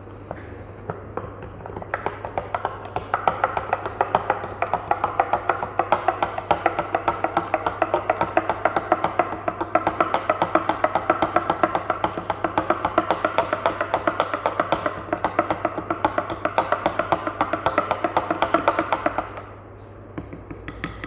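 A spoon stirring cappuccino and hot water briskly in a glass, striking the sides in a fast even rhythm of about five or six clinks a second that ring on the same few pitches. It starts about two seconds in and stops shortly before the end.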